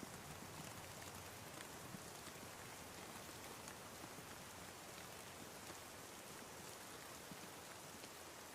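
Steady rain falling, an even faint hiss with scattered soft drop ticks.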